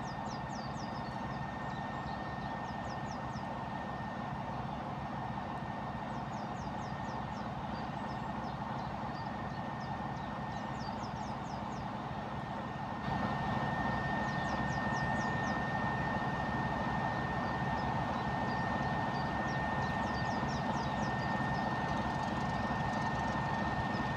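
Distant drone of an approaching Class 31 diesel-electric locomotive, whose English Electric diesel engine gives a steady low rumble with a constant high whine, growing louder about halfway through. A small bird repeats a short chirping phrase every few seconds.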